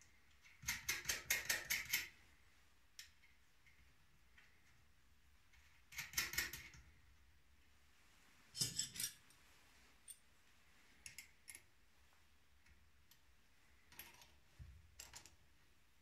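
Metal hand tools clicking and clinking at a bench vise: a burst of rapid metallic clicks about a second in, shorter bursts around six and nine seconds, then a few faint clinks.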